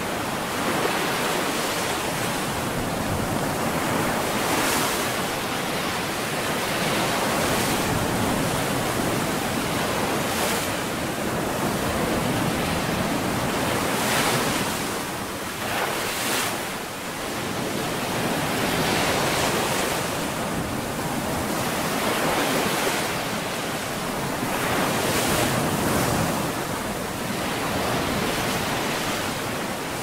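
Ocean surf breaking on the shore: a continuous rushing wash of water, swelling as a wave crashes every few seconds.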